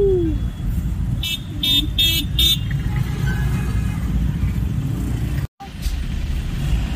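Heavy road traffic with a steady engine rumble. A horn gives four quick, high-pitched toots between about one and two and a half seconds in, and the sound cuts out for an instant about five and a half seconds in.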